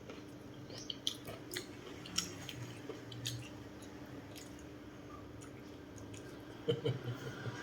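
Wet chewing and mouth clicks, irregular, with a cluster of louder ones near the end, over a faint steady hum.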